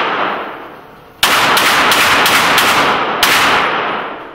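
Handgun shots in an indoor range, loud and echoing. The ring of one shot dies away, then about seven shots follow in quick succession, roughly three a second, from about a second in, each leaving a long ringing tail.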